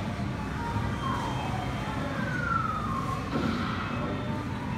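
Slow wailing siren-like tone from arcade game machines, gliding down, then up and down again, over a steady background hubbub of the arcade.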